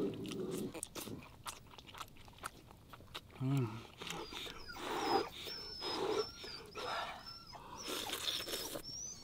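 Chapaguri noodles being slurped and chewed with many small wet clicks and several short slurps, with a short, low falling hum a few seconds in.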